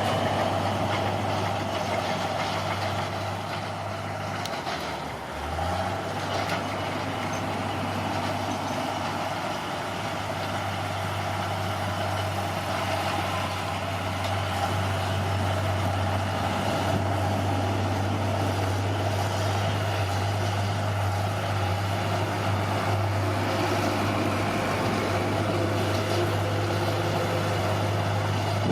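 Bulldozer's diesel engine running steadily, its pitch dropping briefly and climbing back about five seconds in.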